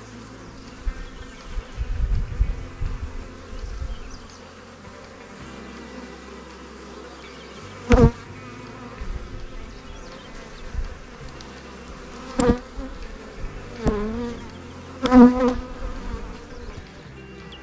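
Honeybees buzzing around an open hive, a steady hum, with single bees passing close several times, each briefly louder. A low rumble between about one and four seconds in.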